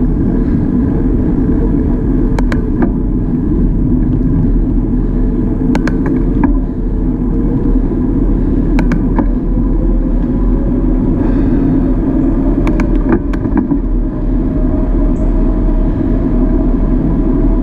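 Wind rushing over an action camera's microphone with tyre noise as a bicycle rolls along a paved road, broken by several short sharp clicks and knocks from bumps.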